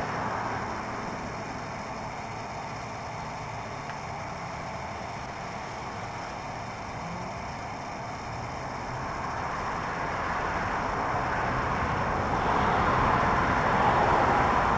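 Steady rushing outdoor noise, swelling louder over the last few seconds.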